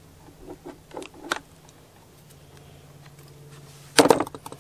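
Light clicks of hands working a wire and hand tools at the saw's switch, then a sudden loud clatter about four seconds in as a pair of wire strippers is put down on a plastic workbench. A faint low hum runs underneath.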